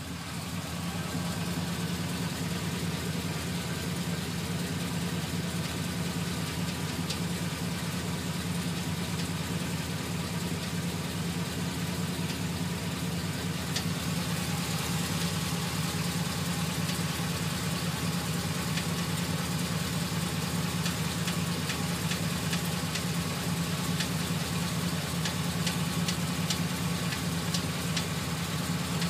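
A GMC Sierra 2500HD's 6.0-litre V8 idling steadily, with a rapid, light ticking over the engine note. The owner says this tick comes on a few minutes after starting, is worse when stopping after a drive, and is not there while driving.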